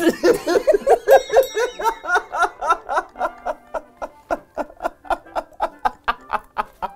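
Hearty laughter: a long fit of quick, even 'ha' pulses, about four or five a second, loudest in the first two seconds. Light background music plays under it.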